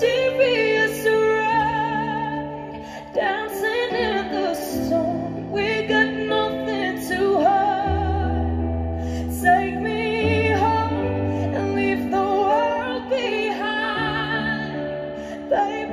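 A woman singing a song live into a microphone, her held notes wavering with vibrato, over long sustained keyboard chords and deep bass notes.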